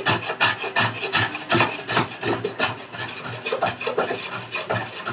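A small hand tool shaving and rubbing across the end of a curly maple vise chop in quick, short back-and-forth strokes, about three a second.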